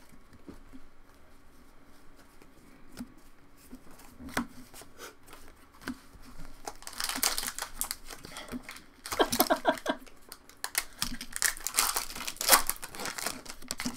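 Foil wrappers of Pokémon booster packs crinkling as packs are handled and opened: a few soft clicks at first, then clusters of loud crackling from about halfway through.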